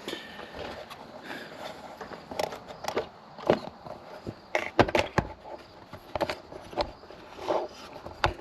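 Hands working a washer hose free along a car's wiring harness: irregular clicks, taps and rustling of plastic parts, with a cluster of sharper knocks about five seconds in.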